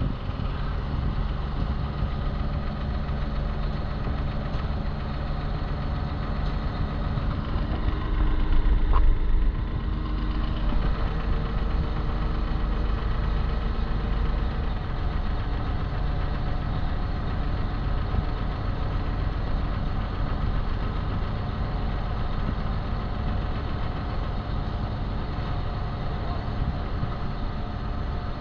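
Parasailing towboat's engine running steadily, with a louder swell about eight to nine and a half seconds in.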